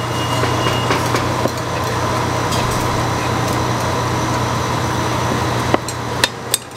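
Cleaver chopping food on a thick wooden chopping block: light knocks at first, then a few sharp chops close together near the end, over a steady low background hum.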